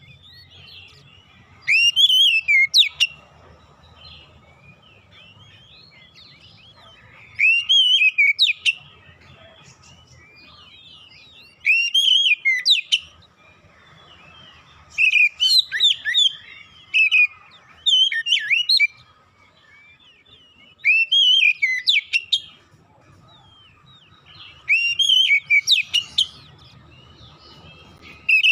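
Oriental magpie-robin (kacer) singing in loud bursts of quick whistled notes that glide up and down, each phrase about a second long, repeated about eight times a few seconds apart.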